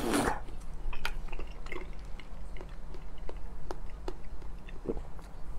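Close-miked chewing of soft chocolate lava cake, with scattered small mouth clicks and smacks.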